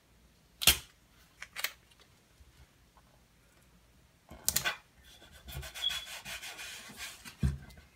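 Hands working with stickers: a few sharp clicks and a crackle, then about two and a half seconds of rubbing as a palm smooths a glitter vinyl sticker down onto a painted wooden toilet seat, ending with a soft thump.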